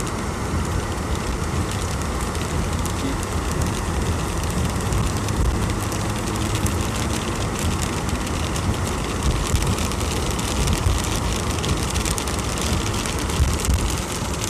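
Steady road noise inside a moving car as its tyres run through slush and hail on the road surface, a low rumble under a hiss. Many small ticks of rain or hail hit the windshield.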